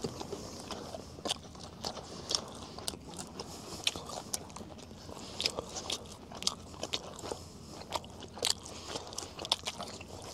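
Close-up chewing and biting of Mongolian shorlog, grilled meat skewers: irregular wet mouth clicks and smacks as the meat is eaten.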